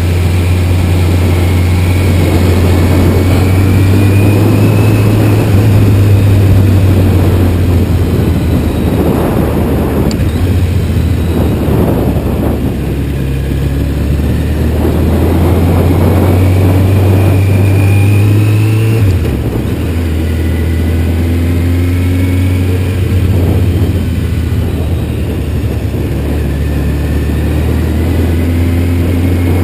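Kawasaki Z1000's inline-four engine running at low speed through tight turns, its pitch rising and falling with the throttle, with wind rushing over the microphone. The engine note drops briefly about two-thirds of the way through.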